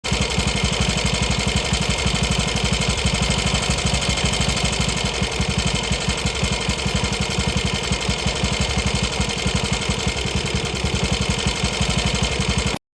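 Ducati bevel-drive engine idling steadily with an even, rapid firing pulse; it cuts off abruptly near the end.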